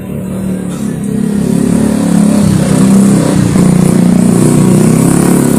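A man's voice reciting the Quran in the melodic tilawah style through a microphone and loudspeaker, holding one long, slightly wavering note that swells louder over the first two seconds.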